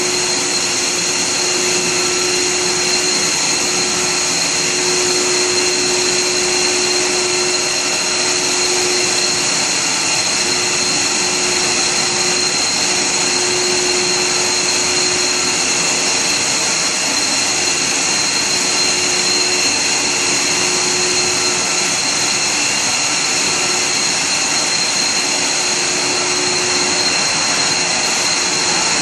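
HDPE silicon core pipe extrusion line running: a steady, unbroken machine whir and hiss with a constant high-pitched whine.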